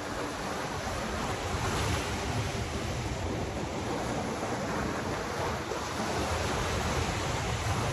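Ocean surf breaking and washing over the rocks of a jetty, a steady rush of noise.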